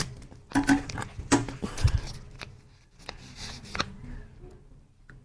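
Scissors snipping open a plastic jelly snack packet: a sharp click at the start, then several quick clicks and snips, followed by soft rustling of the plastic wrapper as it is handled.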